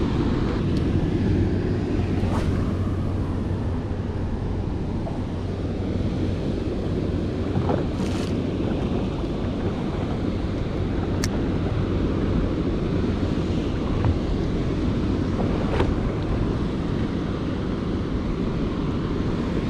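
Ocean swell and surf washing against rocks and a small boat's hull, with wind buffeting the microphone, a steady low rush. A few light clicks stand out now and then.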